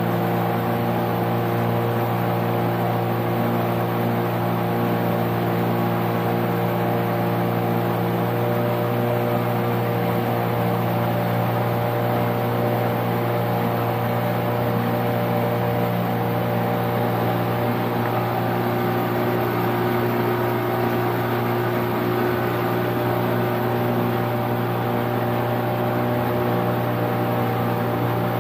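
A small boat's outboard motor running steadily at cruising speed, holding one even pitch throughout, with the rush of the hull moving through water.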